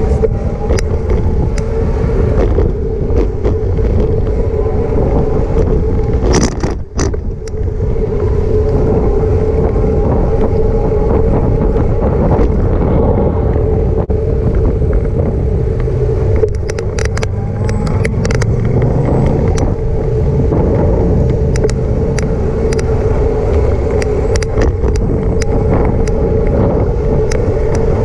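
Riding noise from a bicycle moving along a city street: a low rumble with a steady hum, broken by scattered sharp clicks and rattles, in two clusters about a quarter of the way in and a little past halfway.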